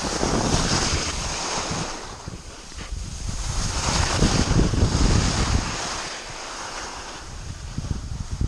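Skis hissing and scraping over cut-up, lumpy piste snow, swelling in surges with the turns, mixed with wind rushing over the microphone.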